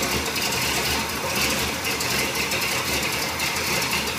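Chevrolet 350 V8 (bored .060 over, RV towing cam, Quadrajet carburetor) idling steadily with a fast, even ticking. It is warmed up but runs rough on old fuel that the owner believes is half water from bad ethanol gas.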